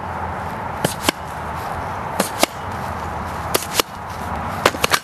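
Extreme pogo stick bouncing: a pair of sharp clicks with each jump, about every 1.3 seconds, over a steady hiss. Near the end comes a quicker cluster of clicks as the rider loses control and bails.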